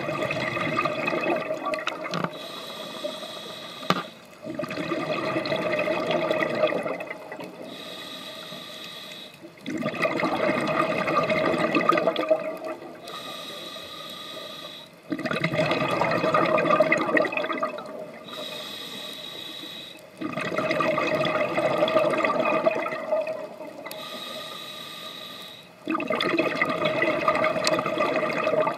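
Scuba diver breathing underwater through a regulator: six loud bubbling exhalations of two to three seconds each, alternating with quieter inhalations that carry a steady high tone, about one breath every five seconds.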